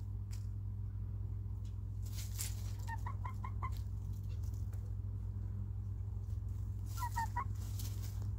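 Hens clucking in two short runs of three or four quick clucks, one about three seconds in and one about seven seconds in, with brief scratchy rustling alongside, over a steady low hum.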